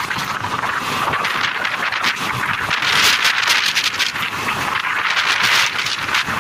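Moving passenger train heard from beside the coach: steady running noise of the wheels on the rails mixed with wind rushing over the microphone, swelling a little about halfway through.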